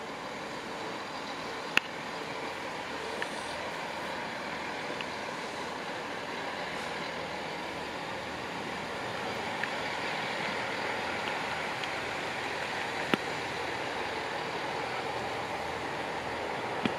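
GWR Class 165 diesel multiple unit running slowly as it pulls into the station, a steady rumble that grows a little louder about halfway through. A few sharp clicks stand out above it.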